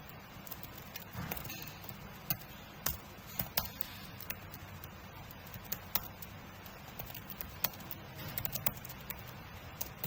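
Typing on a computer keyboard: irregular key clicks, some single and some in quick bursts of several keystrokes.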